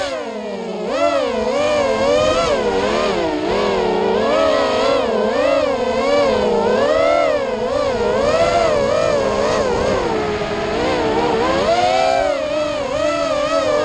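FPV racing quadcopter's electric motors and propellers whining, the pitch swinging up and down continually as the throttle is worked through the course, with a sharp drop in pitch at the very start before climbing again.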